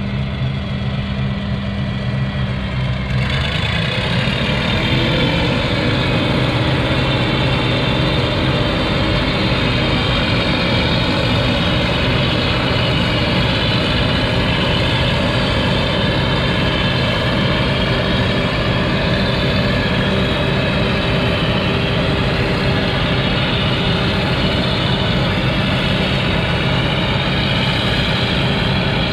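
Heavy farm machinery running, with a lower running note for the first few seconds. About three seconds in the machinery gets louder and fuller, with a whine that rises in pitch over a second or two and then holds steady.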